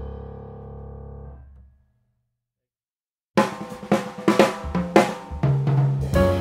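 Background music: one track fades out over the first second and a half, then after a second or so of dead silence a new track with drums starts abruptly.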